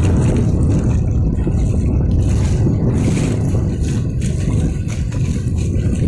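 Shallow Black Sea water rushing and churning in a strong current, heard as a loud, steady low rumble with faint splashing on top.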